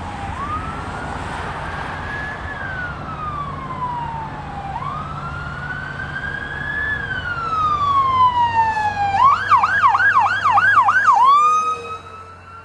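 Fire rescue truck's electronic siren running a slow wail, two long rise-and-fall cycles, then switching about nine seconds in to a fast yelp of about three sweeps a second before settling into a held tone. It is loudest during the yelp and falls off sharply near the end, over a low engine rumble.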